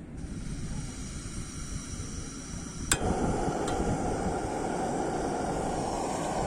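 A sharp click about three seconds in, followed at once by a steady rushing hiss: a portable butane gas burner being lit with its push-button igniter and burning.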